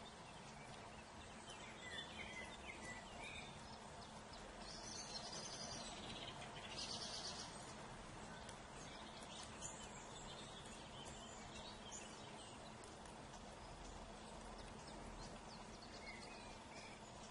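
Faint outdoor background hiss with small birds singing off and on: short phrases about two seconds in, a louder high trill around five to seven seconds, and a few more calls later on.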